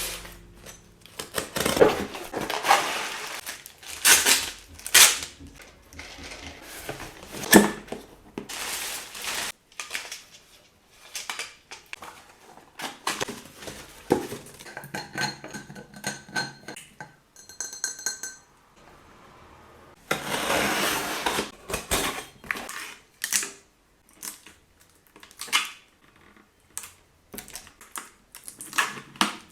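Kitchen containers and groceries being handled while a fridge is stocked: a string of clinks, knocks and clatters of plastic and glass, with stretches of rustling packaging.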